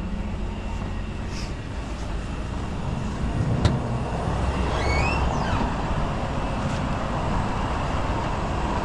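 Heavy diesel engine running steadily, with a sharp click a little past three and a half seconds in and a brief rising whistle around five seconds.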